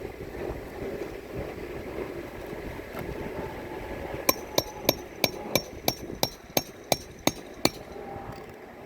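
A hammer striking in a quick, even run of about eleven blows, roughly three a second, typical of hand-nailing during a roof shingle repair.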